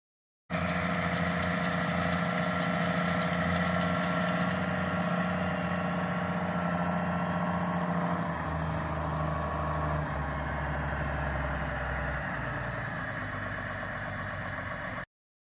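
Farm tractor engine running steadily, with a fast rattle over the first few seconds; its note drops and grows heavier about halfway through, and the sound cuts off abruptly near the end.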